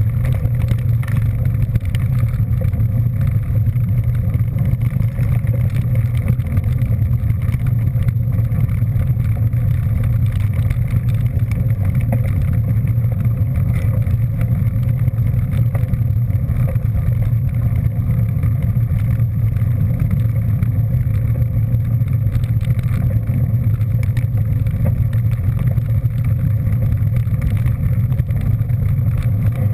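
Steady low rumble of a vehicle under way at an even speed: engine and road noise with no change in pitch.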